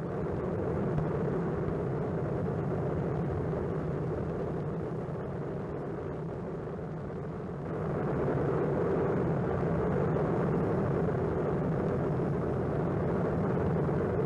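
Steady rushing noise of an erupting lava vent, a spatter cone throwing out lava and gas, growing louder about eight seconds in.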